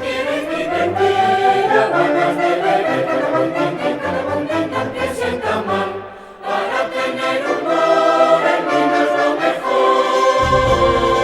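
Music with a choir singing. The sound drops briefly about six seconds in, and deep low notes come in near the end.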